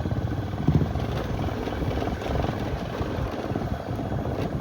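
Motorcycle engine running steadily while riding, with rushing wind noise.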